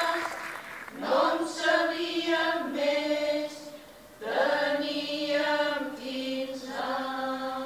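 Women's choir singing in held, sustained notes, in three phrases that begin about one, four and seven seconds in.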